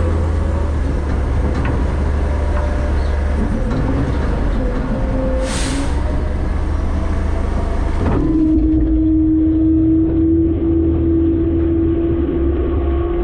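Front-load garbage truck running, heard from inside its hopper: a loud, steady low rumble with whines that waver in pitch. A brief hiss comes about halfway through. After about eight seconds a steady whine sets in.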